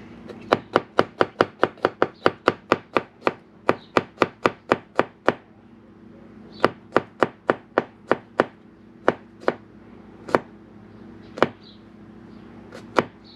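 Kitchen knife chopping on a cutting board: a quick, even run of about five strokes a second for around five seconds, then a slower run of strokes, then a few scattered single chops.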